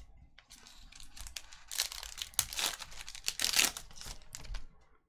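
Foil wrapper of a Panini Select soccer card pack crinkling and tearing as it is ripped open by hand. The crackle starts about half a second in and stops shortly before the end.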